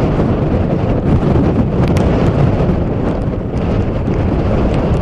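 Strong storm wind blowing across the microphone: a loud, steady, low rushing buffet with a few faint clicks.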